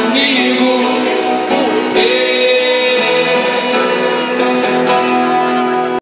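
Acoustic guitar strummed as accompaniment to a male voice singing into a microphone, a live acoustic duo performance.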